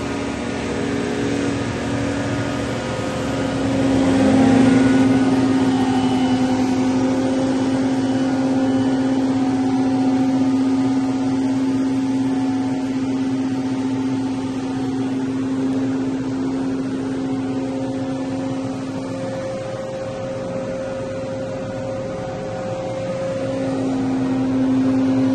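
Gas-powered backpack leaf blower running steadily, a loud engine drone with rushing air. It grows louder about four seconds in, and its main note drops away for a few seconds near the end before coming back.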